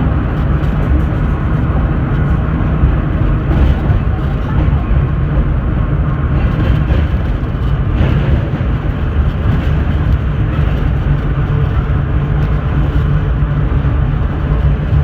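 Vintage IRT Low-Voltage subway car running, heard from inside the car: a steady heavy rumble of wheels on rail and traction motors, with a couple of faint knocks.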